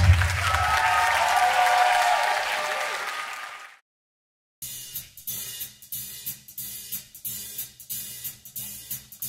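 Big band's held final chord ringing out and fading under applause, then, after a brief dropout, a drum kit alone playing an even cymbal and hi-hat rhythm of about three strokes a second as the next number starts.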